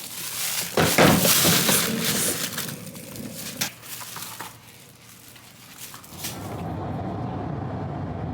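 Loud rustling and clattering, like handling or packing, with several sharp knocks. About six seconds in it gives way to the steady low hum of a car running, heard from inside the cabin.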